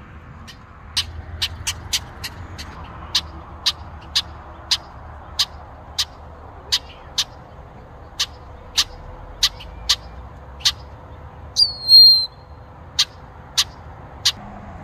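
Male Brewer's blackbird giving repeated sharp 'chek' call notes, roughly one or two a second. About twelve seconds in it gives one louder, brief squeaky whistle.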